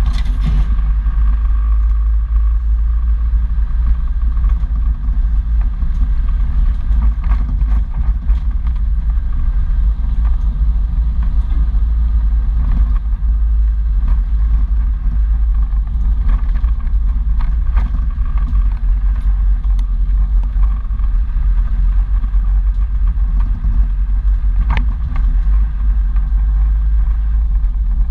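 An off-road 4x4 driving slowly over a rough dirt track, with a heavy, steady low rumble of engine and drivetrain. Scattered knocks and clatter come from the vehicle jolting over bumps, the sharpest about three seconds before the end.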